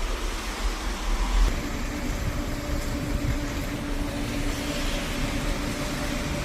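Excavator running with a steady mechanical hum. About a second and a half in, low rumbling gives way to a steadier, higher hum.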